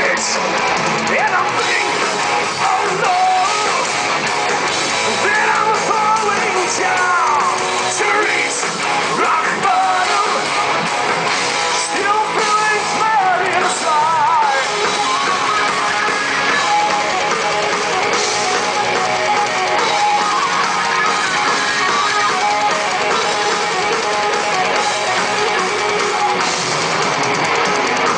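Heavy metal band playing live and loud: distorted electric guitars, a drum kit and singing.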